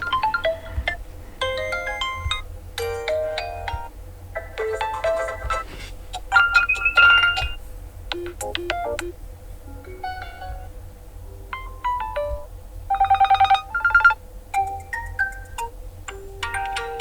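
OPPO A38 smartphone's preinstalled ringtones playing as short melodic electronic snippets, one after another, with brief gaps between them.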